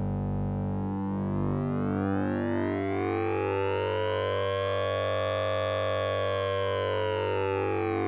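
Synthesizer tone from the Orange Vocoder plugin, with a hard-sync and ring-modulation effect, over a steady low drone. Its overtones sweep slowly upward, peak about five seconds in, and start falling again near the end, giving a siren-like wail.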